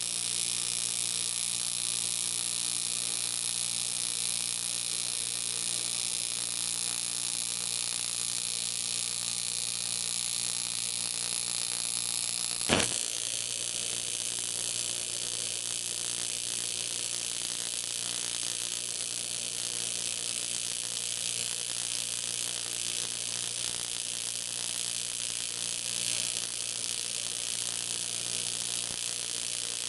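AC TIG welding arc running on 3 mm aluminium sheet: a steady hiss with an electrical hum underneath. A single sharp crack about 13 seconds in.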